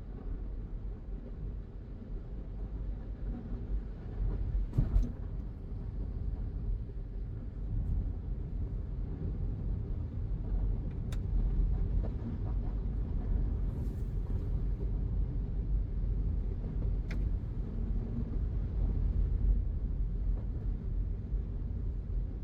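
Car driving along a road: a steady low rumble of engine and tyres, with a knock about five seconds in and a couple of sharp clicks later.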